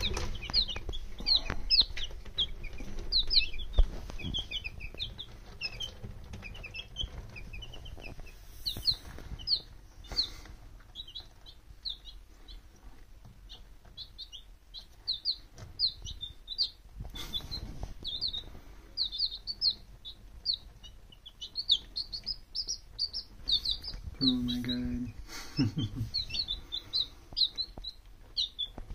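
Baby chicks in a brooder peeping: a steady stream of short, high chirps, several birds at once, with a brief lower call near the end.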